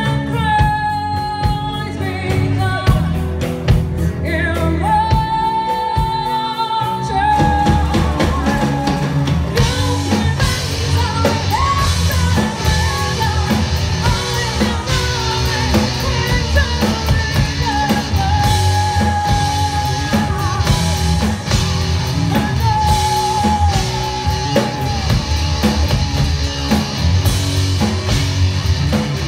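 Live rock band playing a ballad: a woman singing lead with long held notes over electric guitar, bass guitar and a drum kit.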